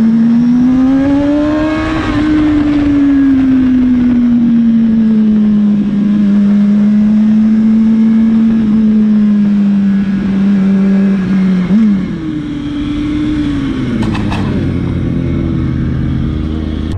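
Sport motorcycle engine on the riding bike, running at a steady pitch while cruising and rising slightly about two seconds in. About twelve seconds in the pitch jumps briefly, then settles lower as the rider eases off. A short clatter comes a couple of seconds later.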